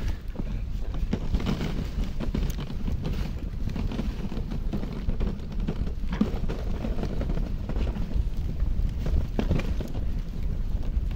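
Wind rushing over the microphone of a moving dog sled, with the steady hiss of the runners on snow and scattered knocks and rattles from the sled as the dog team pulls it.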